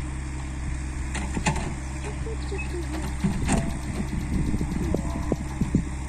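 Excavator engine running steadily, with a few sharp knocks or clanks.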